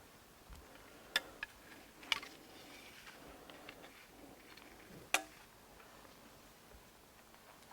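A few scattered sharp clicks and snaps over a faint steady hiss: two close together about a second in, another about two seconds in, and the loudest about five seconds in.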